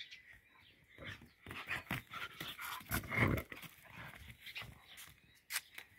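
Dog playing with a squeaky ball, mouthing and chewing it and panting, with a busy run of small clicks and knocks from about one to five seconds in, loudest around three seconds.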